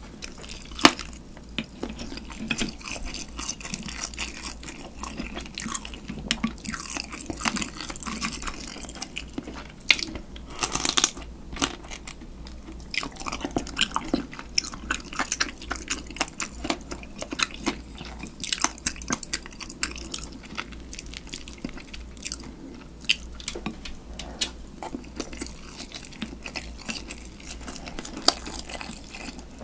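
Close-miked eating of spicy marinated raw crab (yangnyeom-gejang): wet chewing broken by many sharp crunches and cracks as the crab shell and legs are bitten.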